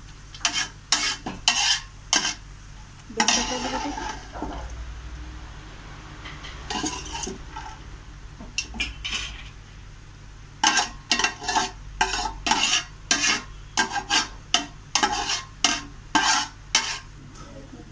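Metal spoon scraping and knocking against a large metal pot while chopped dried coconut fries in ghee, with a light sizzle from the hot fat. The strokes come in irregular bunches, with a quick run of them in the last third.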